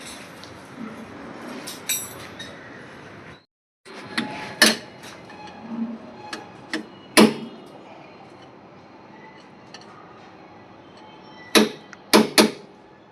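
Metal tools clinking and knocking on tractor parts during repair work: scattered sharp, ringing strikes, with three quick hits near the end.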